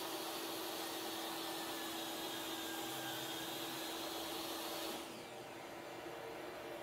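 DeWalt jobsite table saw running with a steady motor whine, then switched off about five seconds in and winding down in a falling whine. A lower steady hum carries on afterward.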